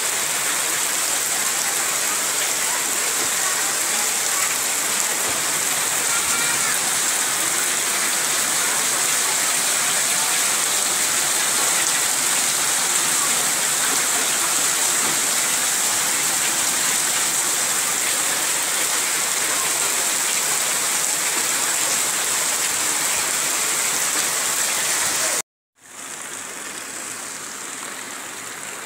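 Heavy rain pouring down steadily. About 25 seconds in it breaks off for a moment, then resumes softer.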